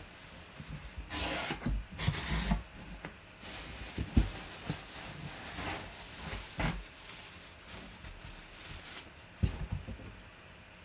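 Cardboard box being opened by hand: the flaps scraping and rubbing, two loud scrapes early on, then a few sharp knocks against the box.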